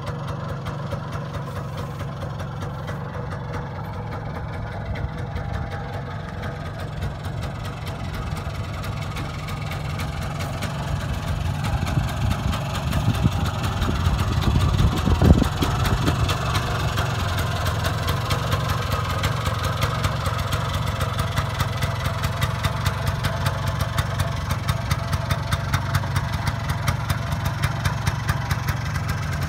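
Messerschmitt KR 200's 191 cc Fichtel & Sachs single-cylinder two-stroke engine idling steadily, a little louder from about halfway through.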